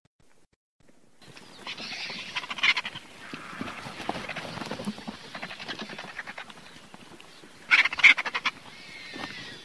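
Griffon vulture calls: hoarse, rattling croaks starting about a second in, with the loudest rattling burst about eight seconds in.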